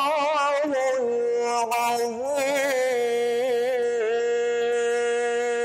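A man's solo voice singing the closing phrase "Sadaqallahul 'azim" in melodic Quran recitation, in the Bayati maqam: quick wavering ornaments in the first second, then one long held note with small melodic turns.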